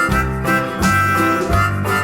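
Background music: upbeat acoustic country-style tune with plucked guitar or banjo and harmonica, a steady beat.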